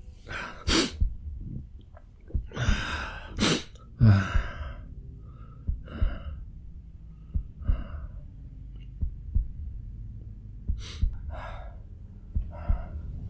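A man with a cold and fever coughing hoarsely. The coughs are loudest and come in a cluster over the first few seconds, strongest about four seconds in, then come as fainter single coughs and breaths.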